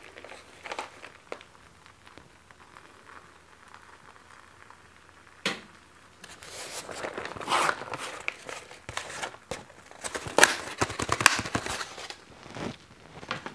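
Shredded cheese being sprinkled by hand from a plate onto an egg crepe in a cast iron pan: soft rustles and crackles, with a single sharp click about five seconds in and bursts of quick clicks and scrapes from fingers and plate later on.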